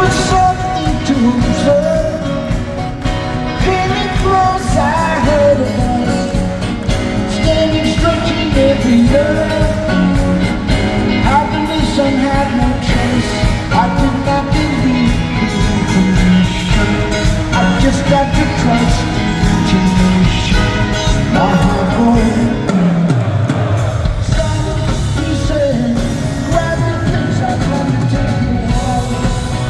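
Live rock band playing with a male lead voice singing, backed by bass, drums, violin and cello. The lowest notes drop out for about a second roughly three-quarters of the way in.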